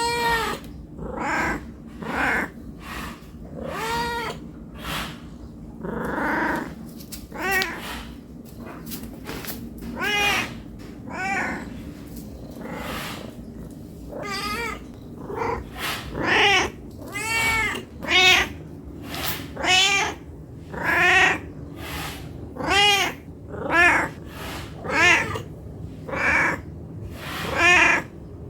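A cat meowing over and over, a string of short rising-and-falling meows that come faster and louder in the second half. These are the meows of a hungry cat begging for food.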